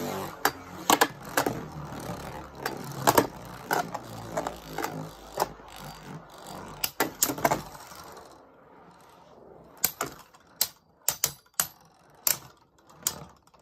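Two Beyblade Burst spinning tops whirring in a plastic stadium, with repeated sharp clacks as they strike each other. The whirring drops away about eight seconds in, leaving scattered clacks.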